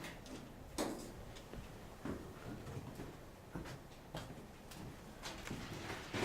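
Footsteps on the bare floor of an unfinished house: a series of uneven light knocks about a second apart.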